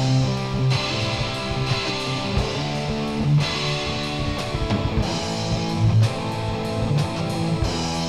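Background music led by guitar.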